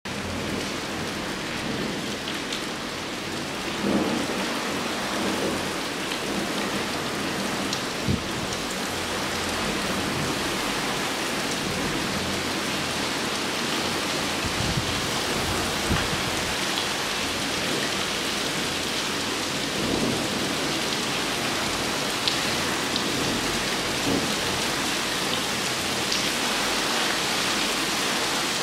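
Torrential rain pouring steadily, with low thunder rumbling at times. There is a brief sharp tap about eight seconds in.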